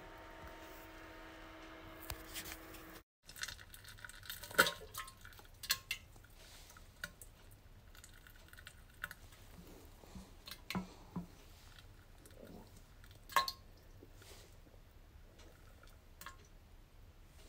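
Scattered sharp plops of stool dropping into toilet bowl water, with pauses of a second or more between them; the two loudest come about four and a half and thirteen seconds in. Before them, a steady hum cuts off suddenly about three seconds in.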